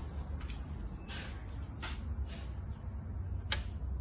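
Steady high-pitched insect chirring, with a low rumble underneath and a few light clicks, the sharpest about three and a half seconds in.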